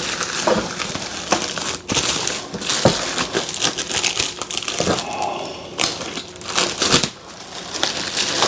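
Packaging being opened and handled by hand: irregular crinkling and rustling of wrapping, with a few sharp knocks and clicks.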